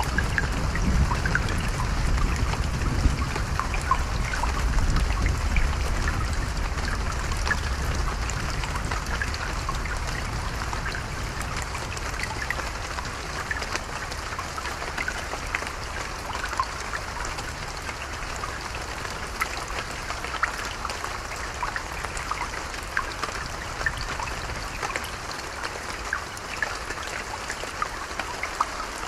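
Creek water trickling with rain dripping, under a low thunder rumble that fades away over the first ten seconds or so.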